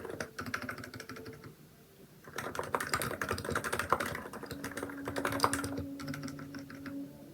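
Typing on a Hansung electro-capacitive keyboard with XDA-profile keycaps: quick runs of key clacks, with a pause of about two seconds near the start before the next run.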